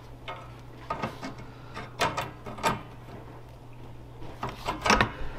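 Pliers clicking and scraping on the steel seat frame and track as a length of fence wire is bent and hooked into the seat-track release linkage to stand in for the broken track wire. A few separate sharp metal clicks, with a busier cluster near the end.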